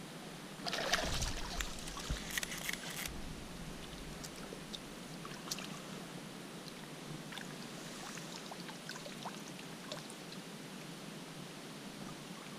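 River water flowing steadily, with a loud burst of splashing about a second in that lasts about two seconds, then scattered small ticks and drips.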